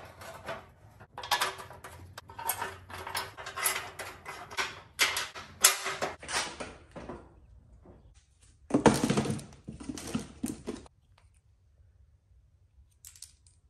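Clattering and knocking as a pickup's front bumper assembly, plastic cover and metal bracket, is handled and turned over, with a louder noisy rustle of about two seconds near nine seconds in, then near quiet.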